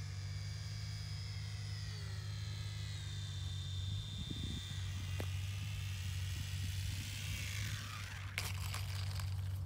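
Electric motor and propeller of a small RC model Cessna whining, dropping in pitch twice as the throttle is eased back for landing. About eight and a half seconds in it touches down with a thump and a short scraping rustle on dry grass, and the whine stops. A steady low hum runs underneath.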